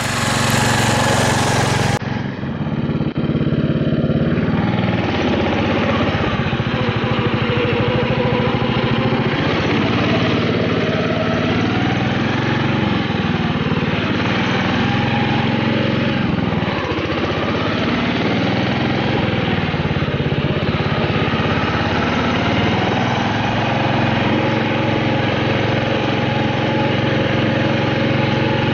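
Off-road lawn tractor's small engine running as it is driven along a trail, its pitch rising and falling with the throttle. It is heard close up, from a camera mounted on the tractor.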